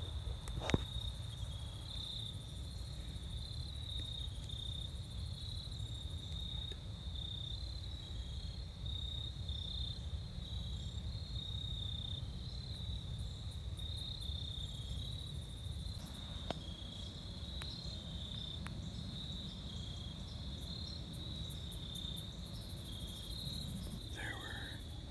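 Crickets chirping in a steady chorus, a continuous fast-pulsing high trill, over a low steady rumble, with a few faint clicks.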